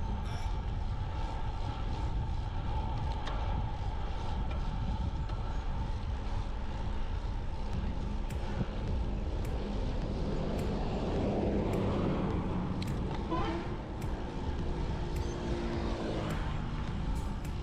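Road noise during a ride: a steady rumble of wind and tyres, with a passing vehicle swelling and fading about ten to thirteen seconds in.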